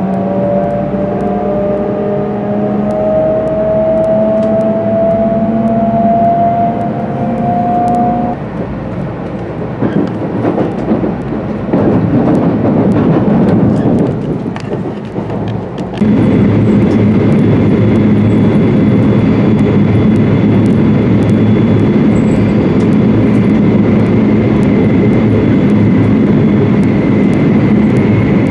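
Joetsu Shinkansen train heard from inside a passenger car as it pulls out of the station: the electric traction motors' whine rises steadily in pitch, then gives way to rushing running noise. About halfway through it jumps abruptly to a louder, steady cabin drone at speed, with a faint high tone over it.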